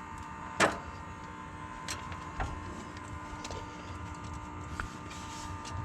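A sharp metallic knock about half a second in, then a few light clicks, as a diesel fuel injector that is not seating fully is worked into its bore by hand, over a steady faint hum.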